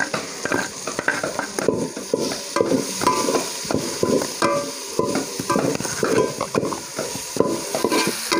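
Tomatoes, onions and spices frying in oil in a pan, stirred with repeated scraping strokes against the pan over a steady sizzle.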